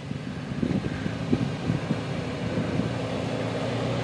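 Toyota FJ Cruiser's V6 engine running at low revs as it crawls up a rocky dirt trail, getting louder as it nears, with a few short knocks from the tyres and underside on the stones.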